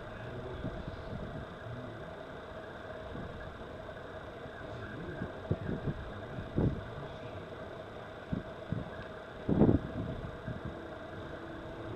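Steady engine hum with a few short low thumps in the second half, the loudest a little before the end.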